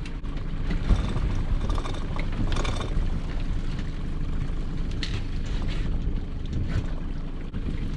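Small fishing boat's engine running steadily under a low rumble, with a few faint rattles and knocks of rope and gear as a string of lobster and crab pots is hauled up.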